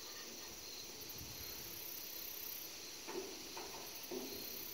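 Insects chirring steadily in the background, a higher layer of the chirring switching on and off every couple of seconds. A few short, faint sounds about three and four seconds in.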